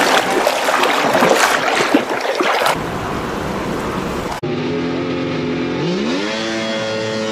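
Rough rustling and handling noise for about the first four seconds. Then, after an abrupt change, a jetboat engine runs steadily, climbs in pitch as it is revved about six seconds in, and holds at the higher speed.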